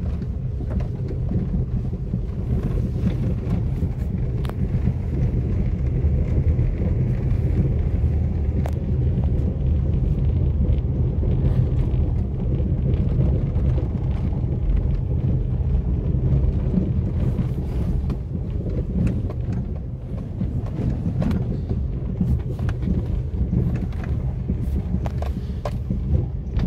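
A car driving on an unpaved dirt road, heard from inside the cabin: a steady low rumble of engine and tyres, with scattered light ticks and knocks throughout.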